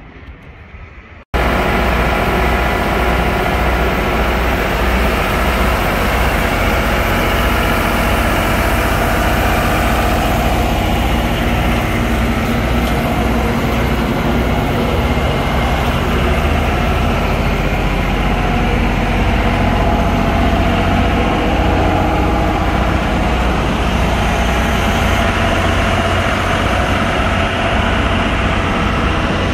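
Kohler 30 kW diesel standby generator running steadily, with a deep engine hum. It cuts in abruptly about a second in.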